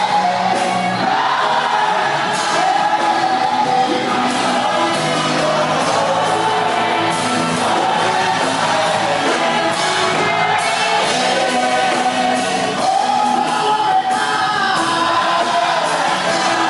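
Live worship music: voices singing over instrumental accompaniment, with shouts from the congregation.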